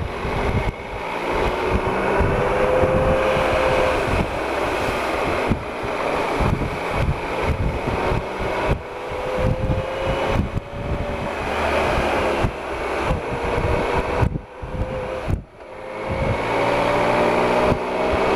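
Triumph Explorer XC's 1215cc three-cylinder engine running under way, its pitch climbing slowly in several long rises as the bike pulls along, with wind buffeting the microphone. The sound drops away briefly twice, about fourteen and fifteen and a half seconds in.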